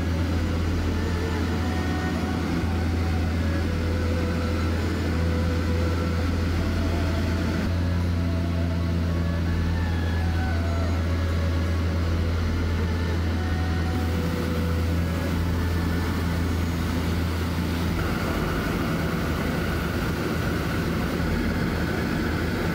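Steady low engine drone and road noise of a motor vehicle on the move, with an unchanging hum throughout.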